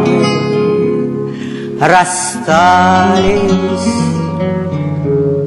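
A woman singing a slow Russian romance, holding long notes with vibrato, to the plucked accompaniment of two acoustic guitars.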